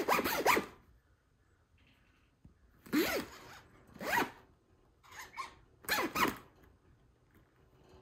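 Budgerigar mimicking a zipper being pulled: a string of short rasping zip sounds, about five of them, one to two seconds apart.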